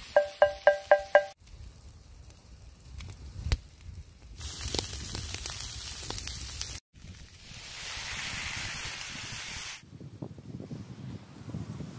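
Pork cubes and shredded red cabbage frying in a steel pan over a wood fire, sizzling in two long stretches. It opens with five quick ringing taps, and near the end the fire crackles softly under the pan.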